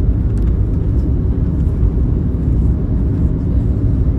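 Steady low rumble inside the cabin of an Airbus A321neo taxiing after landing, made up of its Pratt & Whitney geared turbofan engines at idle and the landing gear rolling on the pavement.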